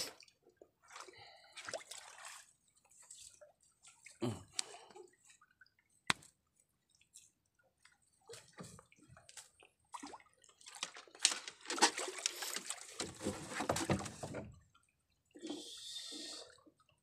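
Water dripping and sloshing off folding mesh net traps as they are hauled up out of the sea over the side of a small wooden outrigger canoe, in short irregular spatters, with a longer, louder spell of splashing water past the middle.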